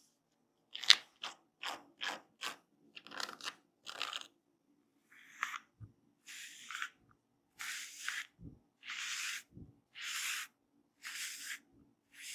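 Hands rubbing through hair and scalp in a head massage: a quick run of short crackling rubs, about three a second, then slower, longer rasping strokes about once a second.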